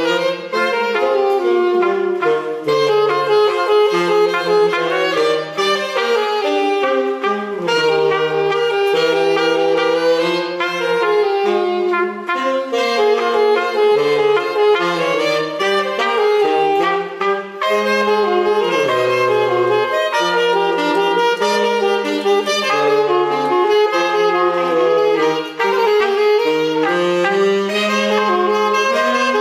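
Instrumental son from the Isthmus of Tehuantepec, played by wind instruments: a melody in parallel harmony over a stepping bass line.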